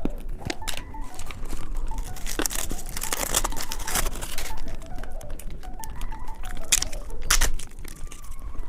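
A strawberry chocolate candy handled and eaten close to the microphone: a wrapper crinkling and tearing, with irregular crackles and clicks.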